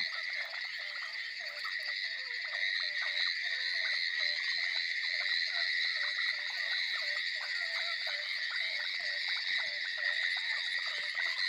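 Dense chorus of frogs calling at night, many short croaking calls overlapping in quick succession, over a steady high-pitched ringing trill.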